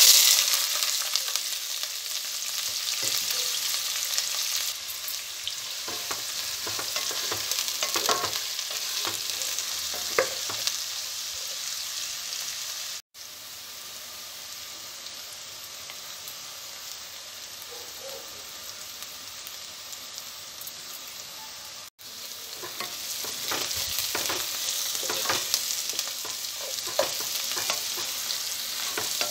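Chopped onions and green chillies dropping into hot oil with a sudden loud sizzle, then frying steadily in the pot. Near the end the sizzle grows louder again, with scrapes and taps of a wooden spatula stirring them.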